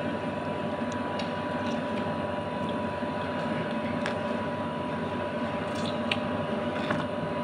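Steady electrical hum of a household appliance with a faint high whine, under a few soft clicks and smacks of people eating fried food by hand from a plastic container.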